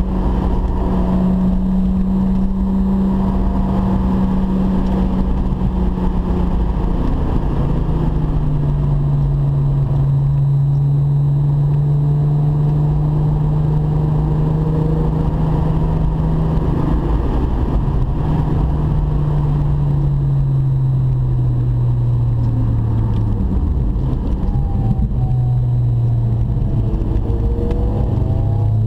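In-car sound of a VW Golf 3 VR6's V6 engine pulling on a race track, over tyre and wind noise. The engine note holds steady, steps down about seven seconds in, then sinks slowly as the car slows for a tight corner.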